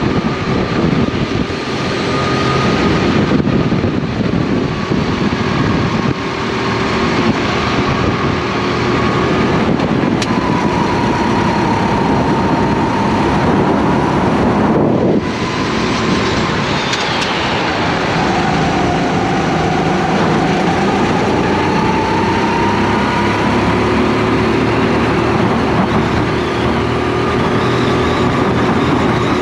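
Racing kart engine heard onboard, running hard with the revs rising and falling through the corners over rushing wind noise. About halfway through, the revs fall away sharply for a moment as the throttle is lifted, then climb again.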